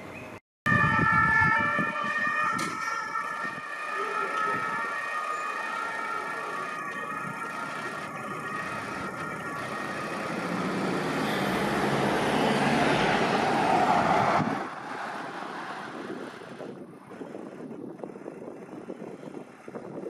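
Fire brigade emergency vehicle sirens sounding, several steady siren tones at once. The sound swells to its loudest about two-thirds of the way through, then drops off suddenly.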